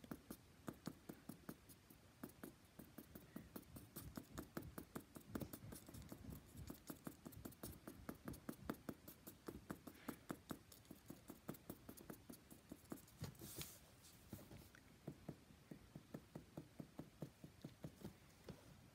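Felt-tip permanent marker tapped again and again onto paper lying on a wooden table, dotting colour on: quick, faint taps, about four or five a second.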